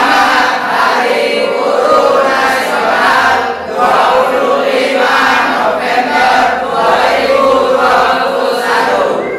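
A group of boys and young men singing together, phrase after phrase with short breaks between.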